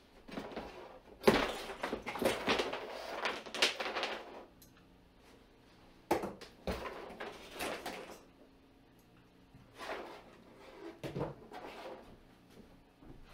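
Green plastic strapping bands being cut off a cardboard-covered shipping crate: a sharp snap as a band is cut, then the loose band scraping and slapping over the cardboard. This comes in a few separate bursts, the loudest about a second in.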